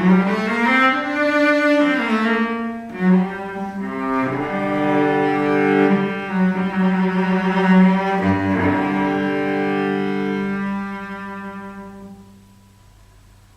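Solo cello built on the 1740 Montagnana model, bowed: a slide up in pitch in the first second, a few held notes, then a long sustained note that fades away about twelve seconds in.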